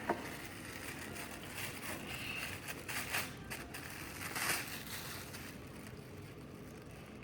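Plastic packaging of a foam squishy toy crinkling and crackling as it is opened by hand, with louder crackles about three and four and a half seconds in.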